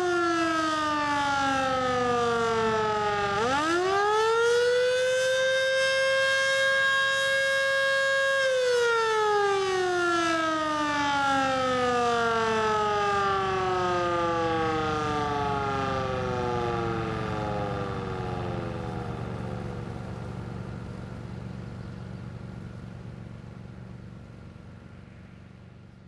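Federal Signal Model 2 outdoor warning siren sounding its attack signal. The pitch falls, climbs back up about three seconds in and holds for several seconds, then slides slowly down and fades out as the siren winds down.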